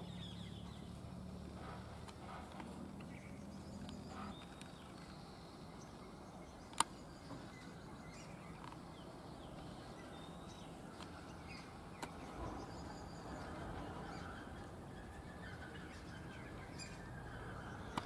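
Faint outdoor background with scattered distant bird calls. A low hum stops about four seconds in, and there are two sharp clicks, the louder about a third of the way in.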